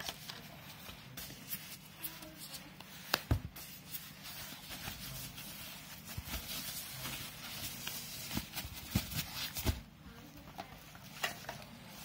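Rustling and crinkling of a white foam-plastic packaging sleeve as a satellite receiver is slid out of it by hand, with scattered sharp clicks and knocks from handling the box, the loudest about three seconds in and in a cluster towards the end.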